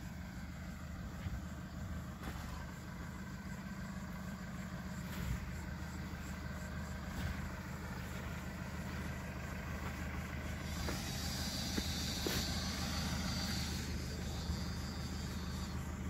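JCB 4CX backhoe loader's diesel engine running steadily at low revs, an even low hum. A higher hiss joins about eleven seconds in.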